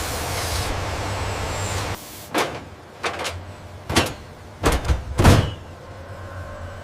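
Machinery noise: a steady hiss cuts off about two seconds in, followed by five sharp mechanical clunks over the next three seconds, the last one the loudest and deepest.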